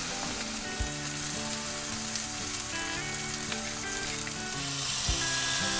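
T-bone steak searing in a smoking-hot oiled frying pan: a steady sizzle, with soft background music underneath.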